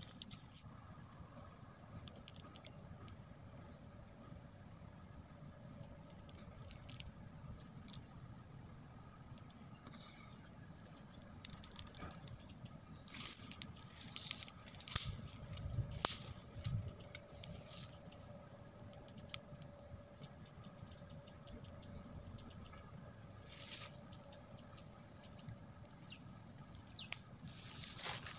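Steady insect chorus: a continuous high, even buzz. Scattered clicks and rustles run over it, with a few louder clicks and low thuds around the middle.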